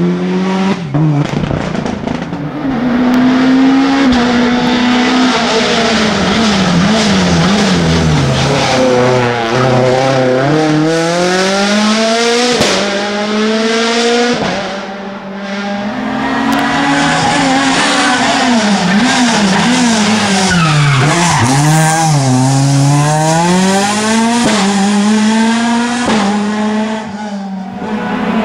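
Rally car engines at full throttle, revving up and dropping back again and again through gear changes and corners: first the Subaru Impreza WRX STI pulling away up the stage, then, after a short dip about 15 seconds in, a second rally car.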